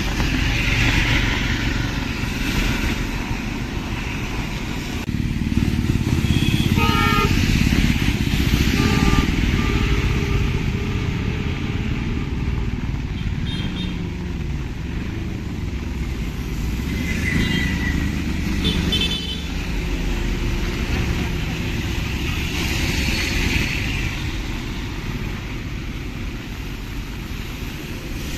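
Busy street traffic with motorcycles and cars running past, and several short horn honks scattered through it.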